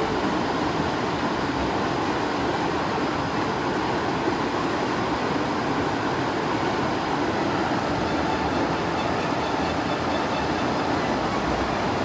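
Fast, shallow stream rushing over rocks in small whitewater rapids: a steady, even rush of water.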